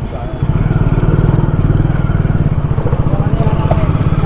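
Motorcycle engine running close by, its exhaust pulsing rapidly and evenly; it gets louder about half a second in and then holds steady.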